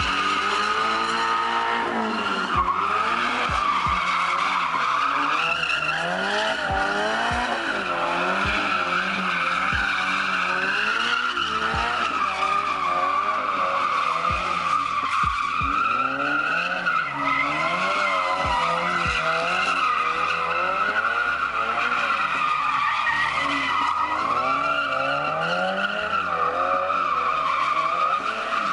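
A car drifting, its tyres squealing without a break while the engine revs rise and fall over and over as the driver works the throttle, with a few sharp pops among them.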